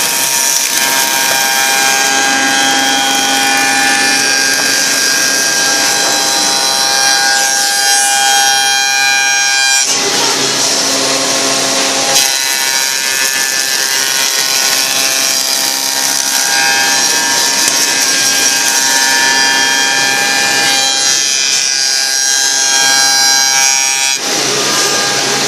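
Wood copy shaper milling machine running, its spindle cutters whining steadily as they mill wood. The sound breaks and shifts about ten seconds in and again near the end.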